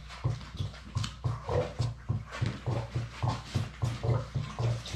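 Labrador puppies whimpering and squeaking in short rising cries as they crowd their mother to nurse, over a low pulsing about three times a second.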